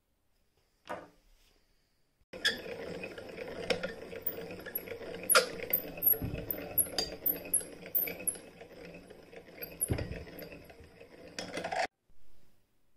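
Vintage Jones Model D-68 hand-crank sewing machine running through leather, a steady light metallic clatter with sharper clicks now and then. It starts about two seconds in and stops shortly before the end.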